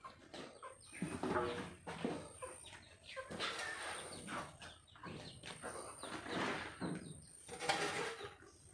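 A flock of chickens clucking and calling in irregular bursts.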